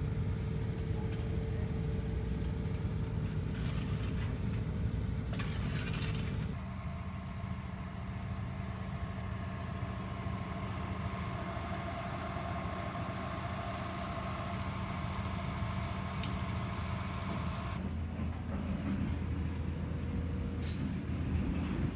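Piling rig's engine running steadily with a low hum, its sound changing abruptly about six seconds in and again about eighteen seconds in.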